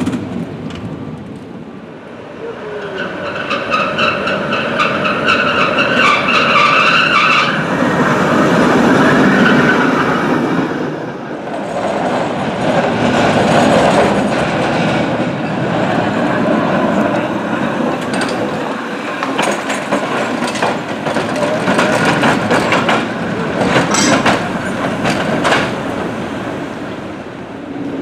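San Francisco cable car running on its street track. A high-pitched squeal lasts several seconds near the start, then steel wheels rumble and clatter on the rails, with a few sharp clanks near the end.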